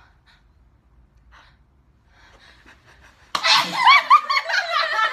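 A person sneezes suddenly about three seconds in, after a faint, nearly quiet stretch. High-pitched laughter follows straight after, in quick rising-and-falling bursts.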